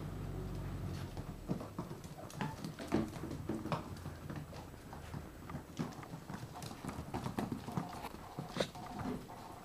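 Puppies' claws and paws clicking and scrabbling on a laminate floor as they play-fight, in quick irregular taps. A low steady drone fades out about a second and a half in.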